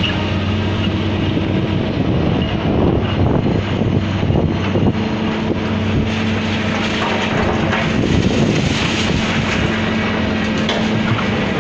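High-reach demolition excavator running steadily, its diesel engine giving a constant low drone, with scattered crackles and knocks from the demolition work.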